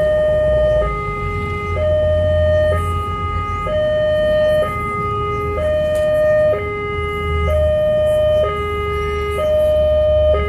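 Railway level-crossing warning alarm sounding: an electronic two-tone signal that switches between a higher and a lower note about once a second, repeating steadily, warning that a train is approaching.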